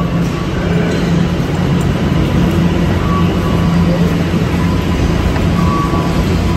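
Steady low drone of a running transit vehicle, with faint brief tones now and then above it.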